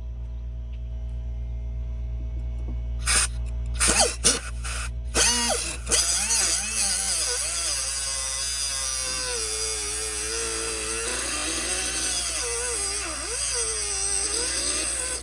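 Angle grinder with a cutoff disc cutting into metal. It scrapes in a few short touches about three seconds in, then cuts steadily with a high, gritty hiss while the motor's pitch wavers as it is loaded, and the cutting stops abruptly at the end.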